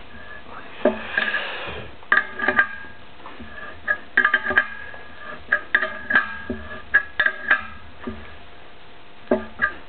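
Steel wrench clinking on a nut and clamp as the bolt is turned in short strokes to press a bronze bush into a bore. Sharp, ringing metallic clinks come at irregular intervals, some in quick clusters, with a short scrape about a second in.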